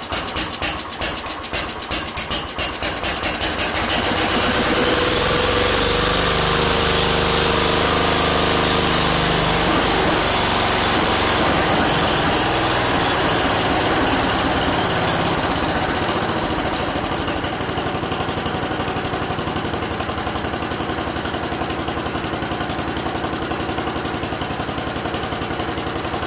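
Cub Cadet 100 lawn tractor's single-cylinder Kohler engine running just after a cold start: it fires unevenly at first, picks up speed over the first few seconds and runs fast and steady, then settles to a slightly slower steady run about sixteen seconds in.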